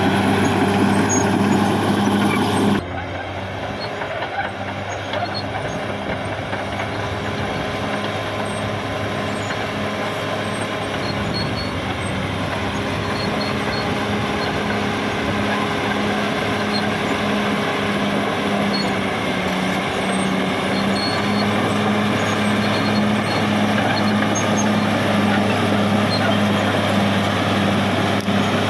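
Caterpillar D6R XL bulldozer's diesel engine running at a steady pitch as the machine works. The sound drops in level and loses its top end abruptly about three seconds in.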